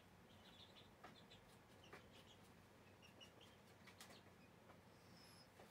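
Near silence: quiet room tone with a few faint, short, high chirps and ticks.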